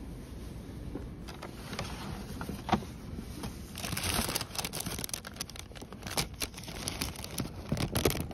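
Crinkling and rustling handling noises with irregular clicks, getting busier from about four seconds in.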